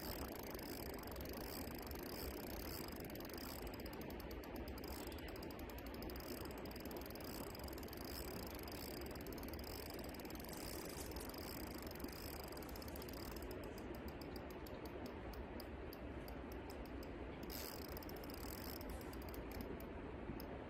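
Spinning reel on a bolognese rod clicking faintly in quick runs of ticks, about four seconds in and again for much of the second half, while a large hooked carp is played. A steady low hiss lies under it.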